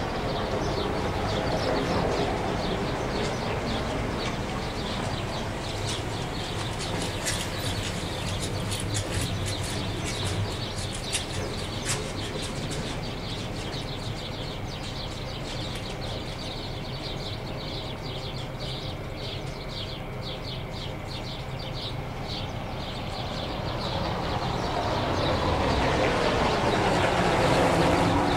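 Steady outdoor rumble of engines or traffic, with small birds chirping rapidly through the middle. Near the end a vehicle passes close, growing louder and sweeping in pitch.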